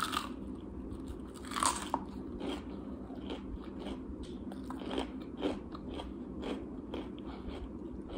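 A person biting into crunchy fried food close to the microphone, with one louder crunch about one and a half seconds in, then crunching chews about twice a second.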